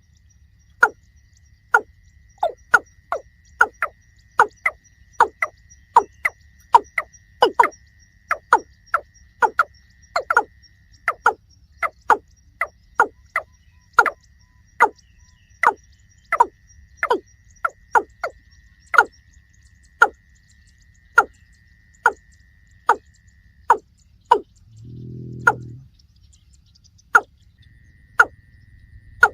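A long run of short, sharp call notes, each dropping quickly in pitch, repeated about two a second and slowing to about one a second in the last third, typical of a calling watercock. A faint steady high tone runs beneath, and a brief low hum comes about 25 s in.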